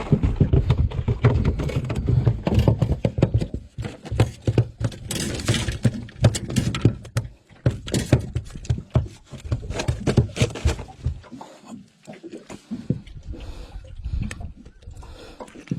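A freshly landed Australian salmon flapping on the boat floor, its body and tail slapping and thudding in irregular quick runs that thin out towards the end.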